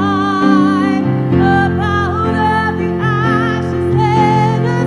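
A worship song: a singer's voice with vibrato over held chords.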